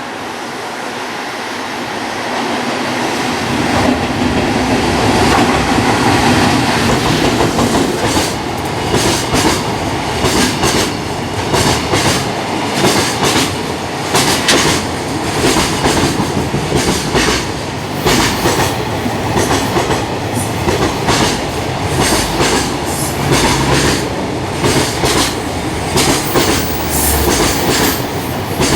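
Japanese electric freight train passing close by: the locomotive's motor sound swells up over the first few seconds, then the freight wagons' wheels clack over the rail joints in a steady, repeating rhythm.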